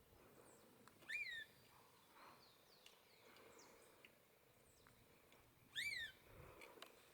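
Epaulet oriole (encontro) calling: two short calls about five seconds apart, each rising then falling in pitch, with fainter chirps between.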